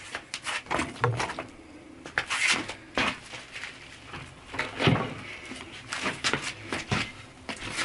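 Knife and a blue gum stick being handled on a work surface: irregular clicks, taps and short scrapes.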